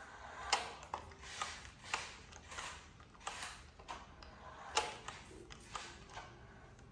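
Toy RC car's small electric motor and plastic gears whirring in short, irregular bursts as it drives and turns on a tile floor, with scattered sharp clicks.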